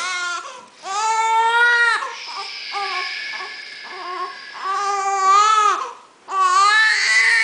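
A young child crying in long, high wails, with shorter sobbing cries between them.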